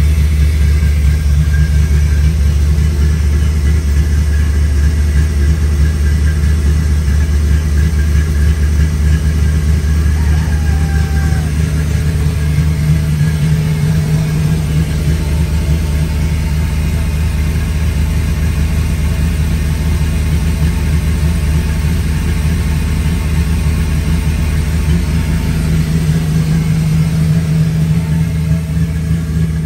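Willys flatfender Jeep engine idling steadily, a constant low running note that stays even in pitch. The owner has judged that it sounds okay.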